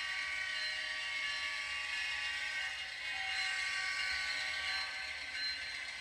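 Model Amtrak diesel locomotive running past on a model railroad layout, its small electric motor and gears whirring steadily.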